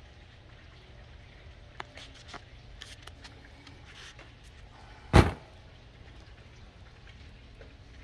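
A few light clicks of a hand wire crimper squeezing crimp connectors onto wire ends, then one loud thud a little after five seconds in, over a low steady hum.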